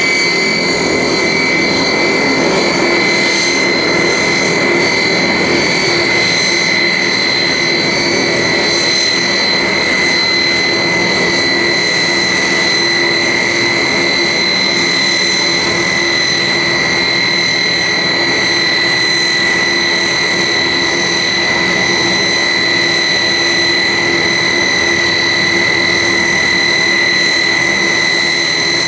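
The two Rolls-Royce Dart turboprop engines of a Hawker Siddeley HS 748 running while the airliner taxis, a loud, steady, high-pitched whine with a second higher tone above it. The whine drops slightly in pitch during the first few seconds, then holds.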